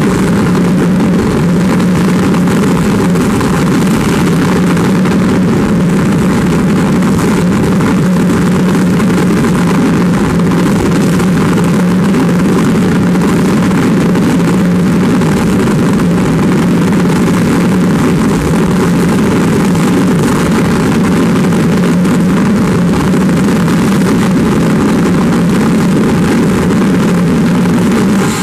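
Green Mamba jet car's jet engine running steadily at full power on afterburner, a continuous loud roar that holds level without letting up.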